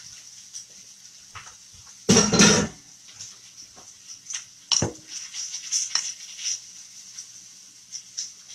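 Spatula folding beaten egg whites into waffle batter in a glass bowl: soft scraping with scattered clicks of the spatula against the glass, and one louder scrape about two seconds in.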